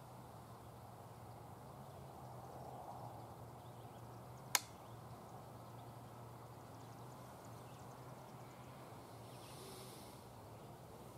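Faint steady outdoor background with a low hum, broken once, about four and a half seconds in, by a single sharp click.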